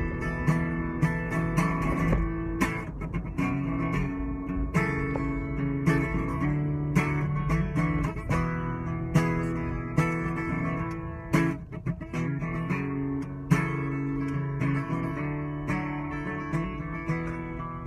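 Acoustic guitar being strummed and picked, a steady run of chords with sharp strum strokes, played inside a car's cabin.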